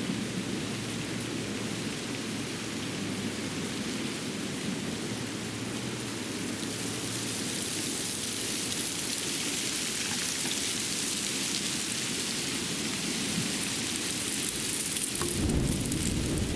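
Steady outdoor ambience of a snowy winter forest: an even hiss that swells for several seconds in the middle, over a low rumble that grows louder near the end.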